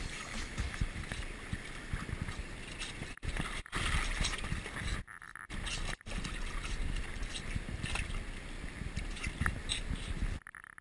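Rushing, splashing river water in the shallows where two minks are fighting, with a steady low rumble underneath. The sound cuts out briefly a few times, longest about five seconds in.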